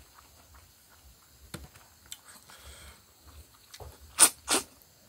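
A person eating by hand: faint chewing and small mouth clicks, then two quick, loud, sharp sucking intakes of air close together about a second before the end.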